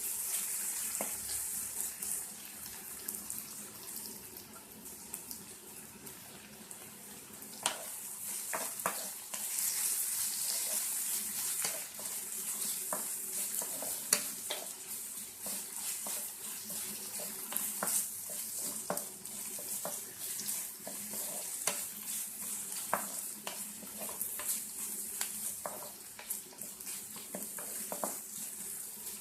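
Chopped onions sizzling in hot oil as they are roasted toward golden brown, with steady frying hiss. From about eight seconds in, a spatula stirs them, scraping and knocking against the pan.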